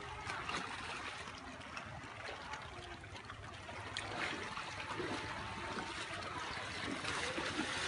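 Shallow water splashing and sloshing as people wade and crawl through it, an even, continuous wash that grows a little louder in the second half.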